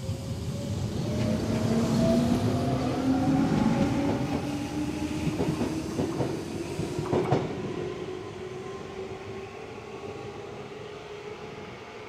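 Shizuoka Railway 1000-series electric train pulling away from a station: its traction motor whine climbs steadily in pitch as it accelerates, with a cluster of sharp wheel clicks on the rails past the middle. The sound then eases off as the train draws away.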